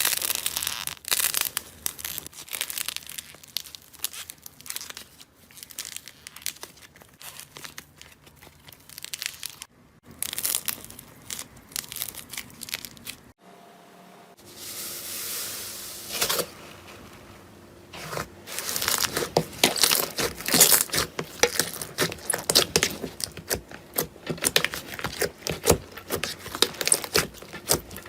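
Slime being squished, pressed and stretched by hand: dense wet crackling and popping clicks, loudest and busiest in the last third, with a break about ten seconds in and again near thirteen seconds.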